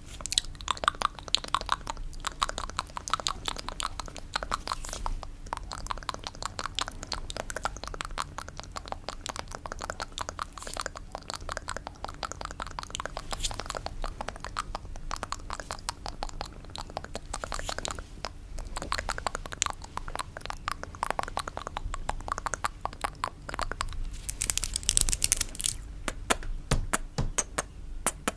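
ASMR fingernail tapping on a coconut: a fast, dense patter of small clicks like rain, with a brighter, hissier stretch near the end.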